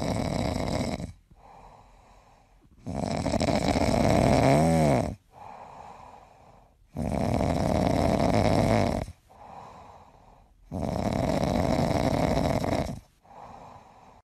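A grey cat's loud, snore-like rasping breaths while its chin is scratched: four long loud breaths of about two seconds each, with quieter ones in between, and a brief wavering tone inside the second.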